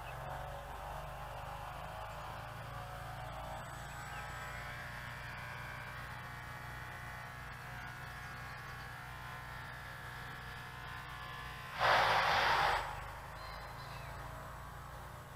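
Twin 4x12 mm coreless motors and propellers of a micro RC plane whining steadily in flight, their pitch drifting slowly with throttle and distance. About twelve seconds in, a short rush of noise lasts under a second.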